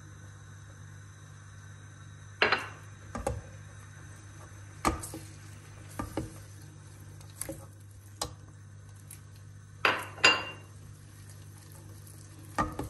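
Silicone spatula stirring flour into oil in a stainless steel pot, knocking and scraping against the pot's side in about nine or ten scattered sharp knocks, two close together near the end. A faint steady low hum runs underneath.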